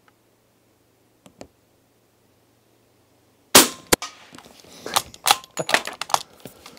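Suppressed De Lisle carbine (SMLE Mk III bolt action, .45 ACP) firing a single shot about halfway through: one sharp crack with a short ring. About a third of a second later comes a smaller sharp knock, the subsonic bullet striking the target board. A run of metallic clicks and clacks follows as the bolt is worked.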